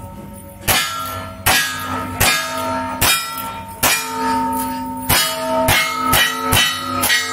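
A rapid string of about ten gunshots, roughly one every three-quarters of a second. Each is followed by the clang and ringing of a steel plate target being hit.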